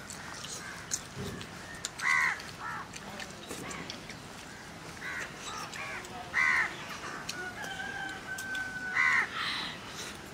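Crows cawing, several short separate caws in loose groups.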